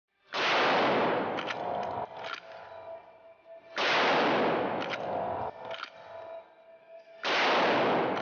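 Three shots from a Marlin 1895 Modern Lever Hunter lever-action rifle in .45-70, about three and a half seconds apart, each echoing in an indoor range. After each shot come a few sharp metallic clicks as the lever is worked to cycle the action.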